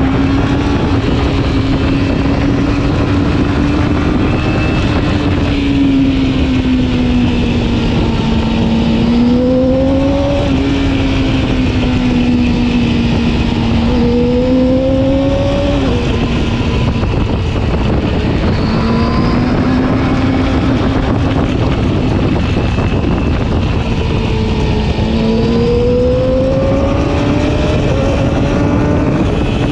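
Yamaha R6's inline-four engine pulling at steady mid-range revs while riding, its note rising and easing a few times with the throttle and dipping briefly about halfway through, over constant wind rush.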